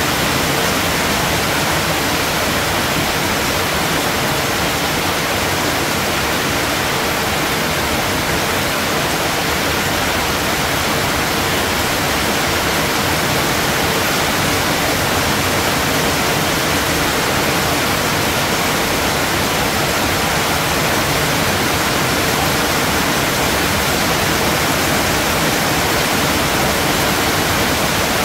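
Steady rain falling, an even, unbroken rush that stays at the same level throughout.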